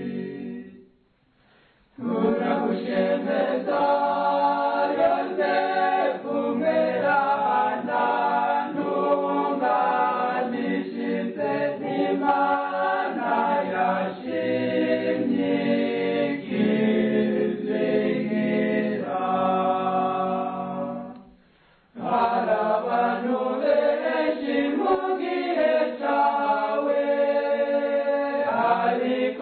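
A choir singing a Kirundi Catholic hymn to St Joseph a cappella, in long phrases broken by two short pauses, one about a second in and another about three quarters of the way through.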